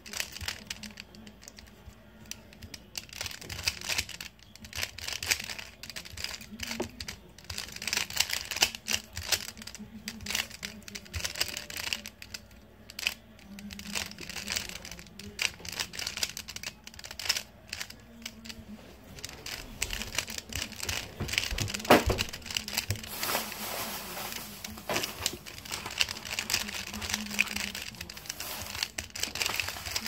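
Plastic 3x3 Rubik's cube being turned rapidly by hand, a continuous stream of clicking and rattling as its layers snap round, with one louder knock about two-thirds of the way through.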